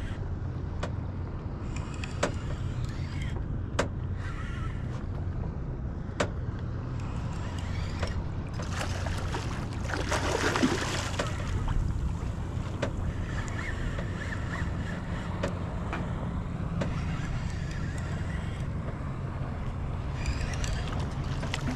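A hooked striped bass thrashing and splashing at the water's surface about ten seconds in and again near the end, over a steady low rumble. There are a few sharp clicks in the first six seconds.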